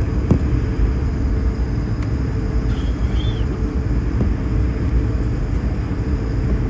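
Steady low rumble of a jet airliner taxiing, heard from inside the passenger cabin, with a light click near the start.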